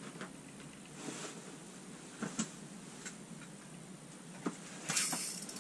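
Quiet inside a small ice-fishing shelter: a few faint, scattered clicks and rustles from handling fishing gear, then a louder rustle of movement near the end.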